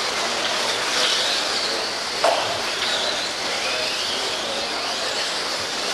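Several electric stock RC off-road trucks racing on a dirt track: a high whine of their electric motors and gearing that rises and falls as they accelerate and brake. A sharp knock comes a little over two seconds in.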